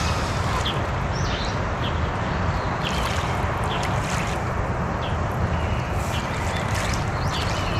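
Steady outdoor lakeshore noise of wind and water, with short high bird chirps scattered through it every second or so.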